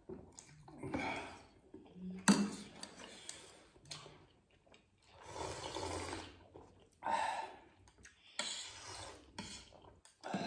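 Eating and drinking at a table: chewing, and slurping of soup from a spoon in a longer hissing pull around the middle, with a few shorter slurps later. A single sharp click about two seconds in is the loudest sound.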